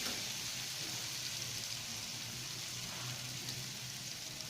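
Ghee and oil sizzling steadily in a pan, frying a tempering of whole spices, ginger garlic paste and turmeric powder.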